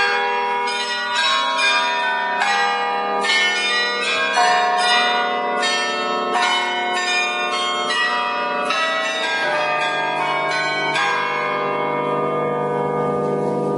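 The Dom Tower carillon's bells at close range, struck one after another in a tune of one to two notes a second, as the automatic play mechanism runs. The last notes come near the end and are left to ring on with a low hum.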